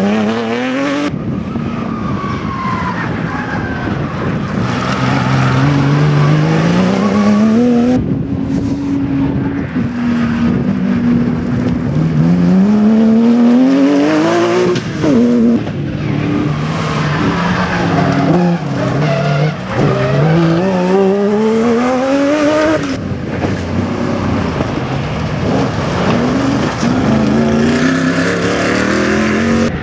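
A string of rally cars on a loose gravel and mud stage, each engine revved hard, rising in pitch and dropping back at each gear change, with tyres scrabbling on the loose surface. The sound jumps abruptly several times as one car gives way to the next.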